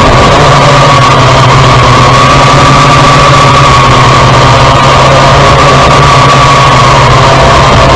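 Kai Deng K70C quadcopter's motors and propellers running loudly and steadily in flight: a low hum under a higher whine that wavers slightly in pitch.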